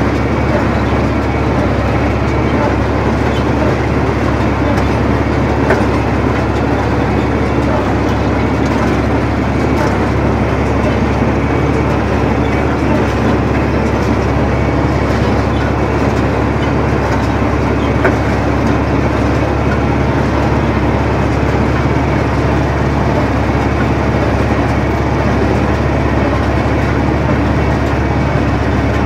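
John Deere 4020 tractor running steadily while pulling a New Holland 315 Hayliner small square baler through a hay windrow, heard from the tractor seat as a loud, continuous mix of engine and baler machinery.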